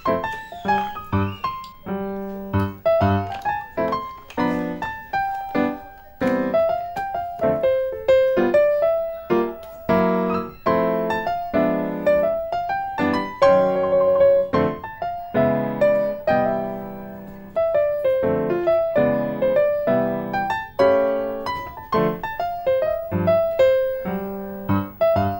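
Background piano music: a gentle melody of single struck notes, each fading away, over soft chords.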